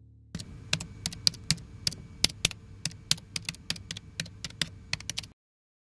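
Typing sound effect: computer keyboard keystrokes, an irregular run of sharp clicks about five a second that starts shortly after the beginning and stops abruptly about five seconds in.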